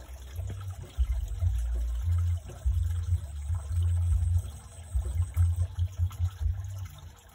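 Water moving and trickling in a shallow, muddy stream pool where a person stands wading, under an uneven low rumble.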